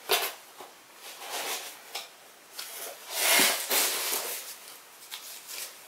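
String being untied and pulled off a cardboard box by hand: rustling and scraping, with a sharp tap right at the start and a longer, louder rustle about three seconds in.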